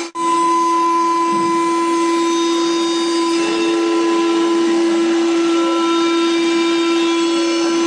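Fulltek PA-3713 CNC machining center's router spindle running at a steady whine as its bit mills solid wood, with the hiss of the cut and chip spray over it. The sound drops out for an instant right at the start.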